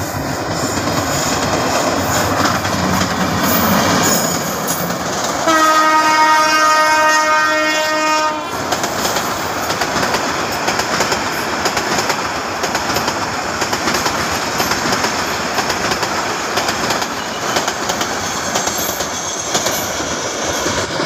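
Meter-gauge passenger train running past at speed, its wheels rumbling on the rails, with one horn blast from the diesel locomotive lasting about three seconds, starting about five seconds in.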